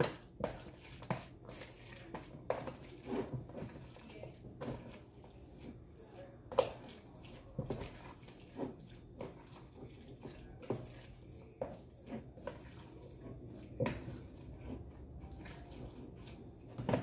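Hands mixing a wet crab and shrimp stuffing in a plastic container: irregular soft squishes and taps against the plastic, with a steady low hum underneath.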